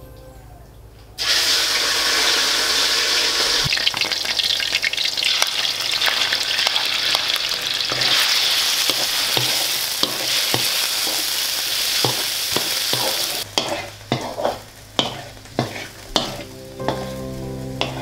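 Pieces of meat sizzling in hot oil in a wok and being stirred with a wooden spatula. The sizzle starts sharply about a second in and stops after about twelve seconds, followed by a run of separate sharp knocks about twice a second.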